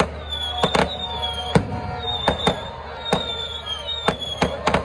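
Aerial fireworks bursting in quick, uneven succession, about ten sharp bangs in under five seconds. A high, wavering whistle sounds between the bangs.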